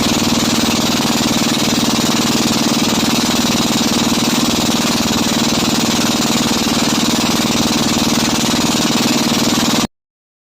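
Motorized bangka boat engine running loud and steady at a constant speed, cutting off abruptly near the end.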